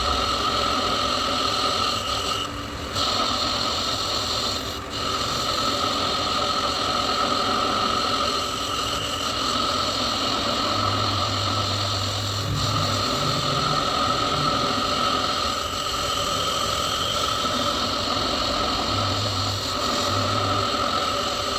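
Metal lathe running steadily, a mechanical rattle under a constant high whine.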